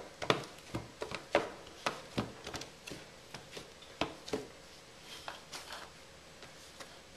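Hands pressing and spreading pizza dough across an oiled metal sheet pan: irregular soft taps and knocks, frequent for the first three seconds or so and then thinning out.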